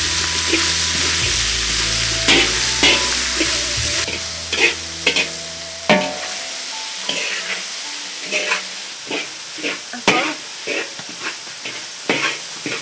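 Food sizzling in a hot pan while a utensil scrapes and knocks against it as it is stirred, with repeated sharp knocks. A low steady hum underlies the first half and stops about six seconds in.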